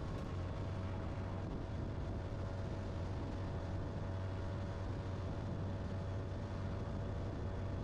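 Bass boat's outboard motor running steadily at speed, a constant low drone under an even rush of noise.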